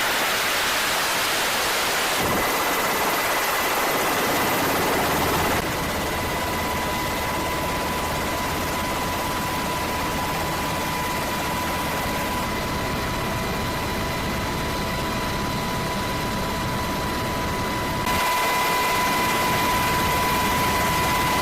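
Loud, steady rushing noise with thin, steady high whines over it. The level and tone shift abruptly a few times.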